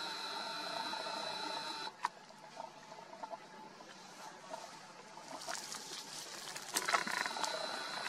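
Camera lens zoom motor whining. One steady whine lasts about two seconds at the start and stops abruptly; a second, shorter one comes near the end, with faint clicks between.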